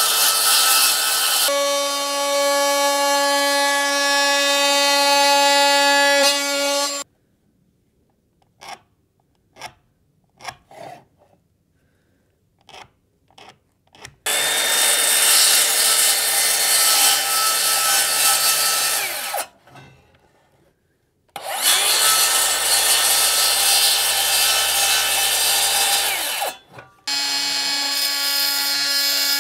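Power saw cutting PVC composite porch boards in four runs of several seconds each, the motor winding down after the middle two. A few light knocks fall in a quiet gap about halfway through.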